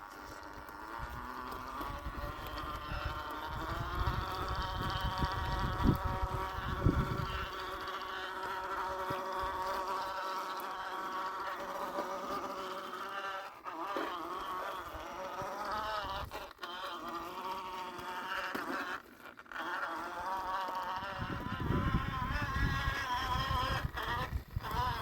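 Electric motor and geared drivetrain of an Axial SCX10 II RC crawler whining, the pitch wavering up and down with the throttle and cutting out briefly a few times. Low rumbling runs under it in the first several seconds and again near the end.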